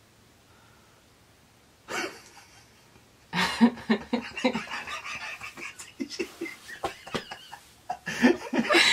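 A man and a woman laughing hard together. After a quiet start there is a short burst about two seconds in, and from about three seconds in the laughter runs on loudly in breathy, broken peals.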